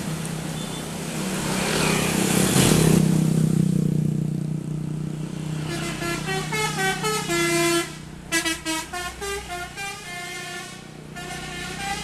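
A bus engine running loudly for the first few seconds, then the bus's Basuri telolet horn playing a song melody in stepped notes. The tune comes in short phrases with brief breaks.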